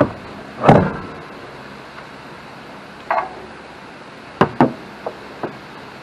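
Scattered knocks and clunks of tools and parts being handled: a heavy clunk just before a second in, a lighter knock around three seconds, two sharp knocks in quick succession a little past four seconds, then two small taps.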